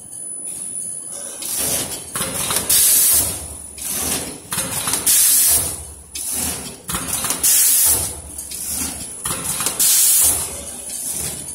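KENWEI vertical form-fill-seal packing machine running through its bagging cycle: a sharp burst of compressed-air hiss about every two and a half seconds, with lower mechanical clatter in between, as filled and sealed bags drop out onto the conveyor.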